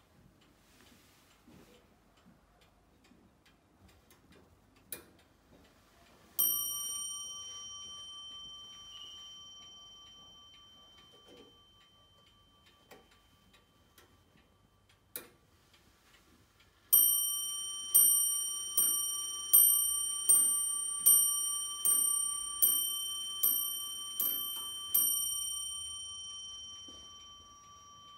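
French 1850 ormolu mantel clock with a thread-suspended pendulum movement ticking steadily. About six seconds in it strikes its bell once, and about seventeen seconds in it strikes eleven times, a strike every 0.8 s or so, each ring dying away slowly after the last.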